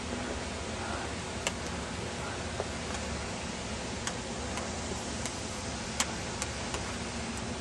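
Steady hiss of background noise with about eight short, sharp ticks at irregular intervals, the loudest about six seconds in.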